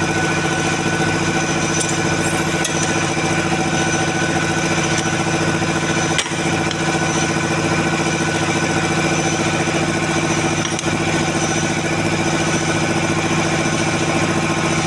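An engine or motor running steadily at one unchanging speed, with a brief dip about six seconds in.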